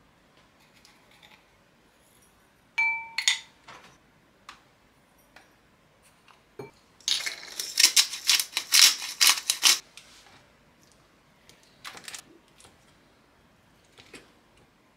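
Kitchen food-prep sounds: a sharp plastic snap about three seconds in, then a glass spice bottle rattling in a quick run of clicks for about three seconds as seasoning goes onto boiled eggs. Near the end a fork clinks a couple of times against a glass bowl.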